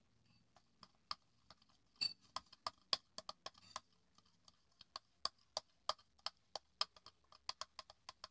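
Eating agar jelly: a run of sharp, irregular clicks, two or three a second, loudest about two to three seconds in.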